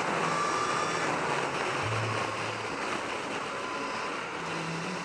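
Wind rushing over the microphone of a motorcycle at track speed, with a faint high motor whine that rises slightly in the first second.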